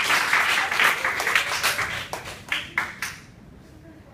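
Applause, thinning to a few scattered claps and dying out about three seconds in.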